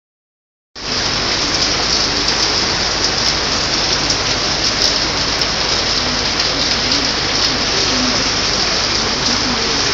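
Heavy downpour: steady, dense rain hitting pavement, puddles and parked cars, starting abruptly a moment in.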